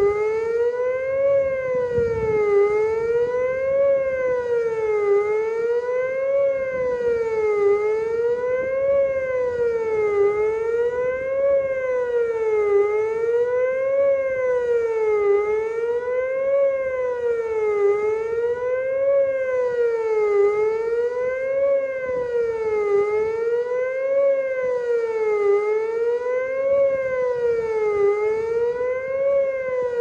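Whelen WPS 2740 electronic tornado siren sounding a fast wail: one loud tone that rises and falls evenly, about once every two and a half seconds.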